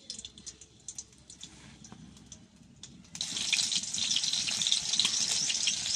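Green chillies frying in hot oil in an aluminium kadai: faint scattered crackles at first, then about three seconds in a loud, dense sizzle starts suddenly and keeps going.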